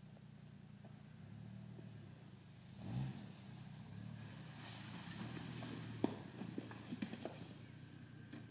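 A distant SUV's engine running at low revs as it creeps down over rough ground. There is a dull thump about three seconds in, then a string of sharp clicks and knocks from loose rocks shifting under the tyres in the second half.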